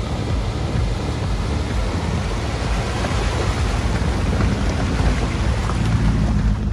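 4x4 vehicle driving on a dirt trail: a steady low engine and tyre rumble under a loud rush of road and wind noise.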